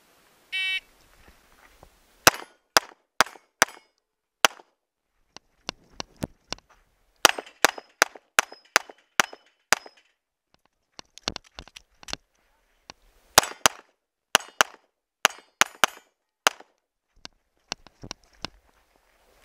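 An electronic shot timer beeps once, then a Walther PPQ 9mm pistol fires several fast strings of shots, with short pauses between strings. Some shots are followed by the brief ring of steel target plates being hit.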